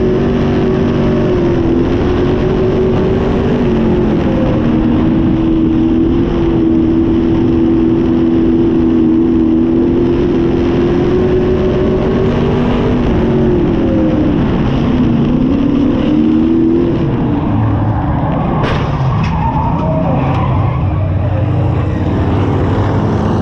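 Pure stock V8 dirt-track race car engine heard on board, running at steady high revs. Past the middle the note dips and wavers as the throttle is eased, then it drops to a lower, slower rumble for the last third, with a couple of sharp knocks soon after the drop.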